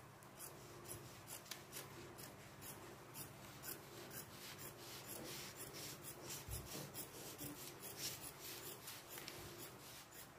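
Large dressmaker's shears cutting through fabric along a paper pattern: a steady run of short, crisp snips, about two a second.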